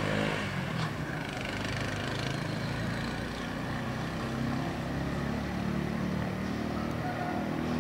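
Distant mototaxi engines, small motorcycle engines on three-wheel taxis, running with a steady hum whose pitch shifts slightly.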